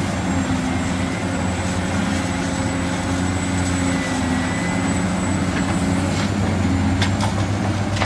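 Large diesel engine of a Caterpillar hydraulic excavator running steadily with a deep, even hum. A faint, thin high whine runs over it.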